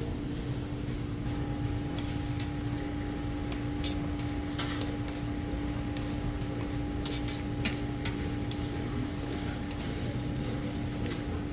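Steady machine hum with a constant low tone, with scattered light clicks and taps of metal cooking utensils.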